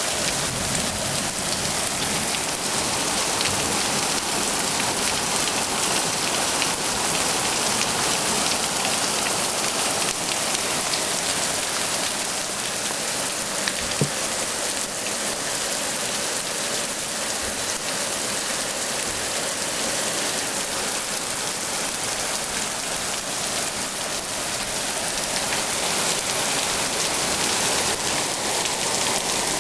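Heavy downpour of a flash storm, rain pouring steadily onto surfaces, with a single sharp click about halfway through.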